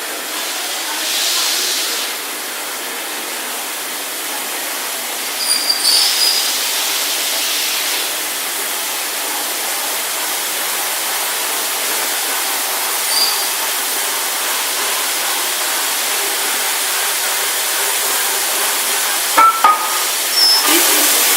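Steady hiss of steam from the Peppercorn A1 Pacific steam locomotive 60163 Tornado, with brief high squeaks about six seconds in and again near thirteen seconds.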